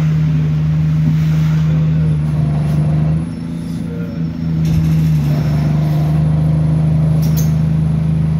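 Alexander Dennis Enviro200 Dart single-deck bus running under way, heard from the passenger saloon as a steady low engine drone. It eases off for about a second a little past the middle, then picks up again.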